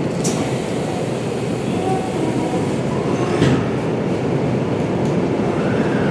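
Inside a Hanshin 1000 series electric train: a steady rumble with a sharp knock just after the start and another about three and a half seconds in. Near the end a faint whine rises and falls in pitch as the Mitsubishi IGBT-VVVF inverter starts the motors and the train begins to pull away from the station.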